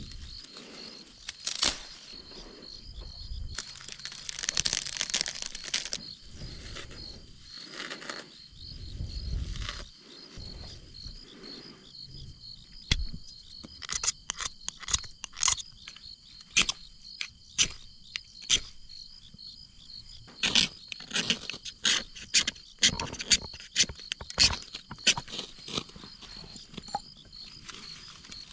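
Crickets chirp steadily in the background. In the first half there is rustling of dry grass being handled. From about halfway on comes a long series of quick, sharp scrapes, often in rapid runs: a ferrocerium rod struck with a metal striker to throw sparks into a tinder bundle, until it catches.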